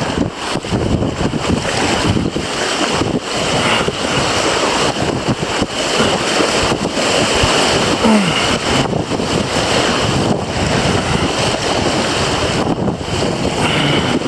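River water rushing through small class 1–2 rapids, mixed with wind buffeting the microphone: a loud, steady noise.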